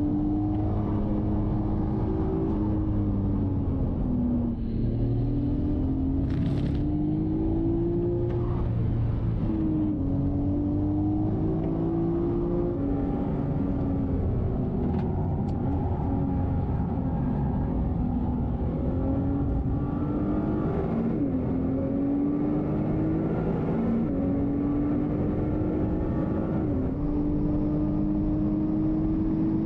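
Nissan Skyline GT-R (BNR34)'s twin-turbo RB26DETT straight-six running hard at racing speed. Its note climbs under acceleration and drops back at each gear change or lift, several times over.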